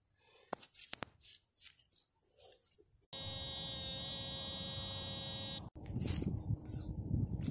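Faint scrapes of hands in dug soil, then about three seconds in a steady electronic buzz from a metal detector signalling a buried metal target, starting and stopping abruptly after about two and a half seconds. Grass rustling and handling noise follow near the end.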